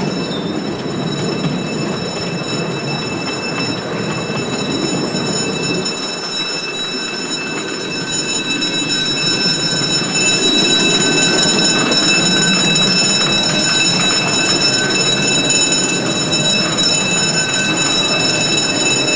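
Miniature ride-on steam railway train running along the track, its wheels rumbling on the rails, with a steady high-pitched whine over it. About ten seconds in it grows louder as the train runs into the enclosed station shed.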